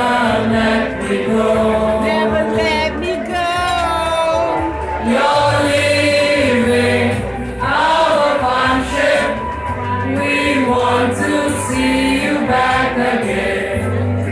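Dining-room wait staff singing a farewell song together as a group, over musical accompaniment with a steady bass.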